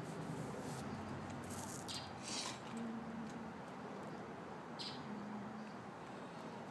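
A few faint swishes of needle and thread being pulled through a beaded patch during hand beadwork sewing, over quiet room tone.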